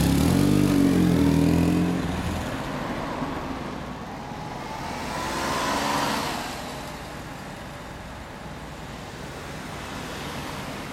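BMW R1100S flat-twin boxer engine with a Stainless Tune aftermarket exhaust, loud as the bike pulls away, then fading quickly into the distance. Street traffic noise follows, swelling briefly about five or six seconds in.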